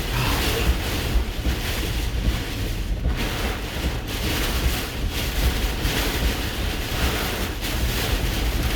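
Hurricane eyewall winds blowing hard around a vehicle, surging and easing in gusts, with heavy wind rumble on the microphone.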